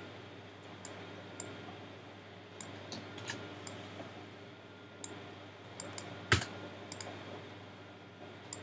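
Irregular clicks and taps of a computer keyboard and mouse, about fifteen in all, with one louder tap a little after six seconds in, over a faint steady low hum.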